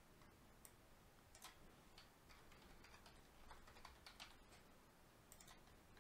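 Faint computer keyboard typing: scattered key clicks, with a quicker run of keystrokes around the middle and a few more near the end.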